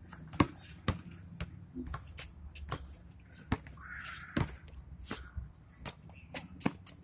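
Basketball bouncing and being handled on a hard court: a string of sharp, irregular thuds, roughly one every half second to second.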